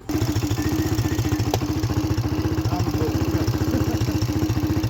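ATV engine running steadily near idle, a fast even pulse with no revving, and a single click about one and a half seconds in.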